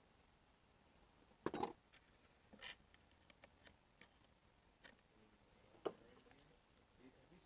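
A few light clicks and taps from small hand tools being handled, over near silence; the loudest comes about one and a half seconds in, with others near three and six seconds.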